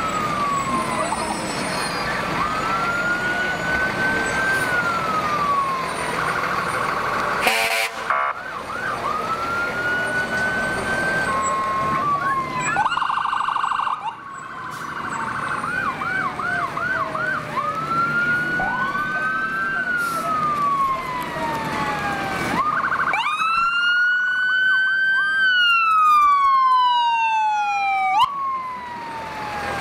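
Several emergency vehicle sirens sounding together, slow wailing sweeps up and down that overlap, with a stretch of fast yelping near the middle. The sirens grow loudest near the end.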